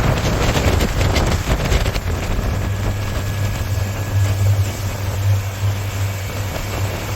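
Boat engine running steadily with a low hum, with wind buffeting the microphone in the first couple of seconds.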